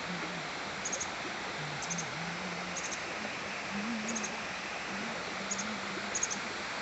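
Waterfall: a steady rush of falling water. Over it, short high chirps in twos and threes repeat about once a second.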